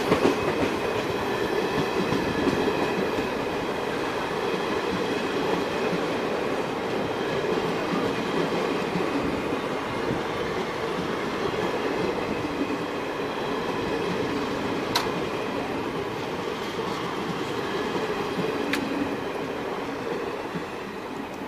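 Indian Railways passenger train's coaches rolling past close by: a steady rumble of wheels on the rails with an occasional sharp click. It fades slightly near the end as the last coach goes by.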